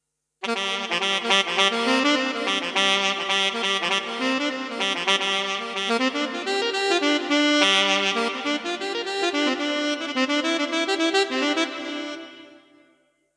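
Yamaha PSR-S770 arranger keyboard playing a saxophone voice: a melodic phrase over sustained chords, starting about half a second in and fading away near the end.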